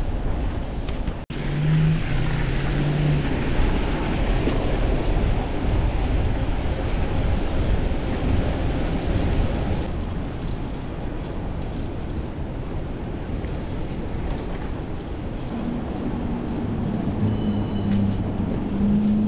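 Wind rushing over the microphone of a moving bicycle, with tyre hiss on wet pavement and the low hum of nearby motor traffic.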